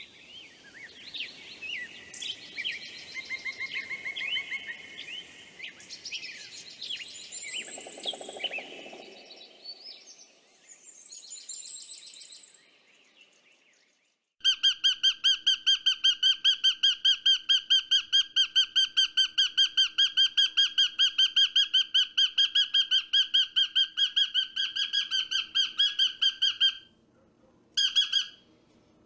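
Birds chirping and calling over one another with quick rising and falling notes. Then an abrupt switch to one loud call repeated very evenly, about four to five times a second for some twelve seconds, stopping and returning in a short burst near the end.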